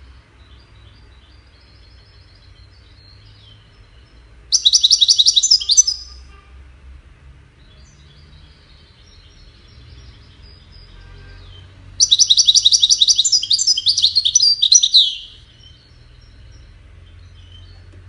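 European goldfinch singing: two loud bursts of rapid, repeated high trilling notes, one short and one longer about three seconds long, with quieter twittering between them.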